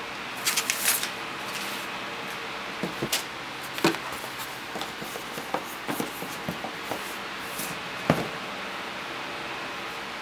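Sneakers and a cardboard shoebox being handled during an unboxing: tissue paper crinkling about half a second in, then scattered light clicks and a few sharper knocks as the shoebox is opened and a shoe is lifted out.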